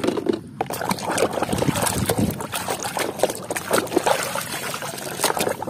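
Muddy water sloshing and splashing in a tub as a plastic toy is swished through it by hand, with irregular small splashes and drips.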